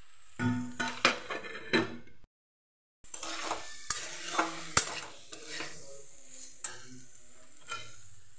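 Metal spatula scraping and clinking against a metal kadai while stirring frying potato and jackfruit sabzi, over a light sizzle. The sound cuts out completely for under a second about two seconds in, and the clinks thin out in the last few seconds.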